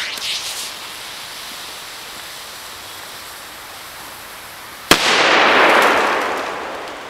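A firecracker explodes about five seconds in with a single sharp bang, the report trailing off over about two seconds. Before it there is only a steady low hiss.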